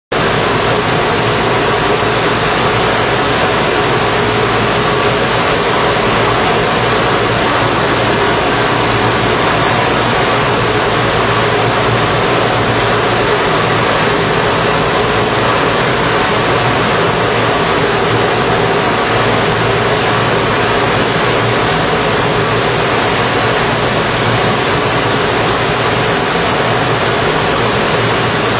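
Industrial brush sanding machine running: abrasive brush heads spinning against wooden workpieces on a conveyor. It makes a loud, steady rushing noise with a faint hum in it.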